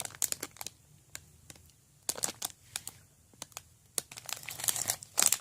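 Plastic packaging crinkling and crackling in short, irregular bursts of clicks as it is handled, sparse at first and busier about two seconds in and again near the end.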